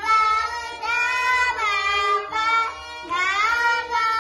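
Young girls singing an Indian devotional song together, holding long notes that glide up and down, with a violin accompanying them.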